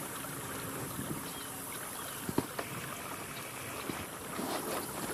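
Steady outdoor background hiss, with a couple of faint clicks about two and a half seconds in.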